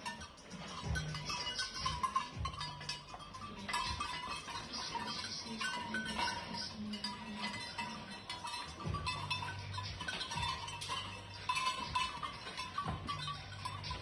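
Sheep bleating several times in a barn, over a constant clatter of hooves and metal pen rails.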